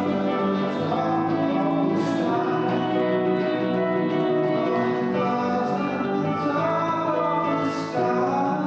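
A live band playing a song, with a singing voice over guitar and other instruments.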